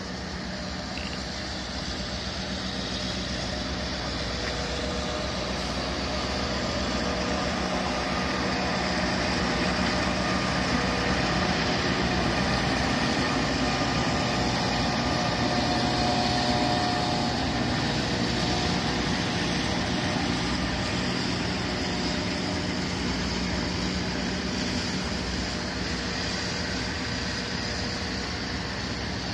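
Diesel locomotive hauling a work train of loaded wagons past at low speed, a steady engine drone over wheels rumbling on the rails. It grows louder to a peak about halfway through as the locomotive goes by, then eases off as the wagons follow.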